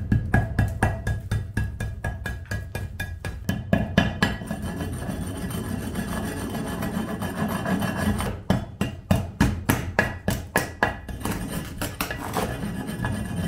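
Hammer knocking along the edge of a cast concrete slab on a steel workbench, chipping off loose, crumbling concrete. It comes as a run of sharp strikes about four a second, then a few seconds of quicker, lighter scraping and tapping, then another run of strikes.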